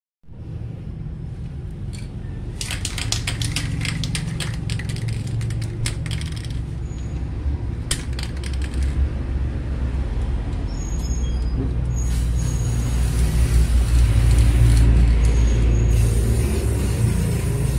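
Aerosol spray paint can: clicks and rattles as it is handled in the first half, then the hiss of spraying in the second half, laying a second coat on a car bumper. Underneath runs a steady low rumble that grows louder in the second half.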